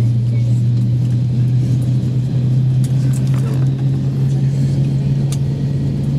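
Steady low drone inside the cabin of an Airbus A321 rolling slowly on the apron with its engines at idle. A few faint clicks sound in the cabin midway through.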